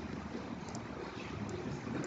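Steady background hiss and hum of the recording, with two faint, short computer-mouse clicks.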